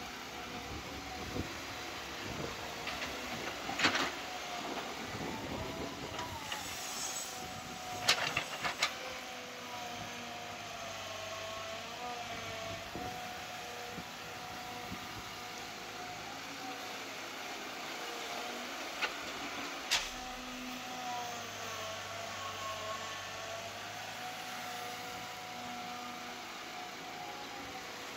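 Caterpillar hydraulic excavator's diesel engine running under working load, its pitch rising and dipping as the hydraulics dig and swing. A few sharp knocks stand out, the loudest about four and eight seconds in and another near twenty seconds, as the bucket works through stony ground.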